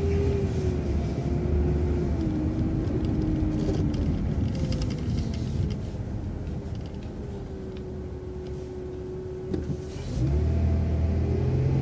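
Transit bus engine running while the bus waits at a traffic light, with a steady low hum. About ten seconds in the bus pulls away: the engine grows louder and a whine climbs in pitch as it accelerates.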